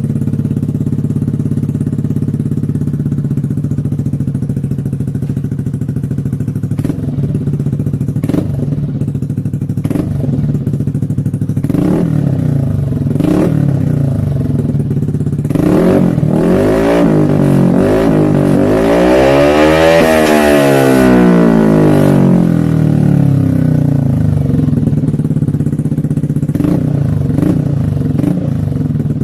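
Yamaha NMAX scooter's single-cylinder engine running through its exhaust pipe, idling with several short throttle blips. About two-thirds of the way through it is revved up in one longer pull and then settles back to idle.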